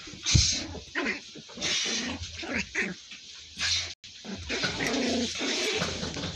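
Small white puppy making short yaps while it plays at a person's hand, with rustling of the bedding.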